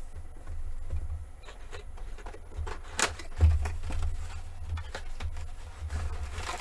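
A trading-card box and its folded paper insert handled close to the microphone: paper and cardboard rustling and scraping, with a few sharp clicks, the loudest about three seconds in, over low bumps from the table.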